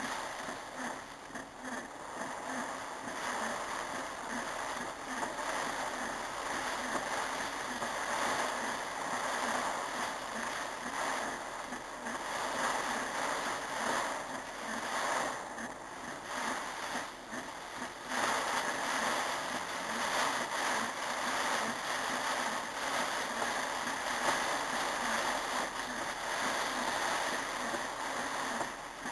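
Heavy rain pouring down in a rainstorm: a steady rushing wash that eases briefly a few times.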